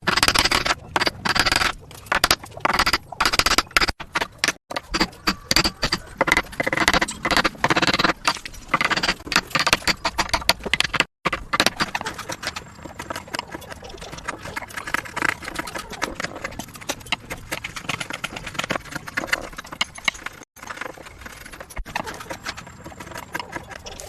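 Hand tools working wood: a rapid, irregular run of knocks and scraping strokes, like chisel and saw work on a joint. It breaks off abruptly a few times at cuts between clips.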